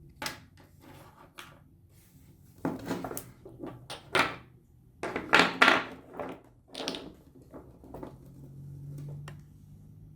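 Objects being handled on a workbench: an irregular run of knocks, clicks and short scrapes, loudest about five to six seconds in.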